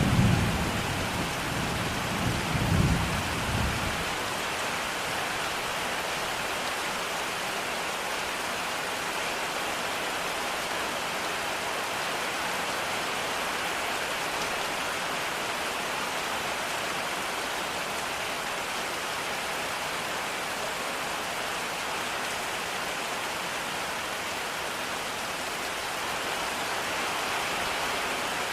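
Steady rain hiss with a low thunder rumble that dies away about four seconds in.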